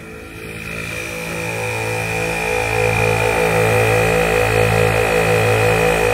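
Northern Ridge twin 12 V onboard air compressor running, building air pressure. It grows louder over the first three seconds, then holds steady with a slow, regular pulsing about once a second.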